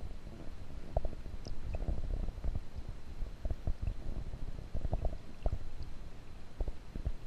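Muffled, irregular low rumbling with frequent soft knocks: water moving against a camera held underwater in its waterproof housing.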